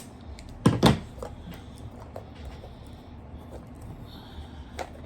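A tightly wrapped package being handled and worked open on a table: two knocks just under a second in, then faint scattered clicks and rustling.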